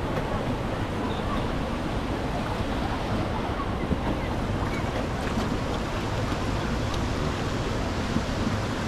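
Steady rushing of water at a water park, with wind buffeting the microphone.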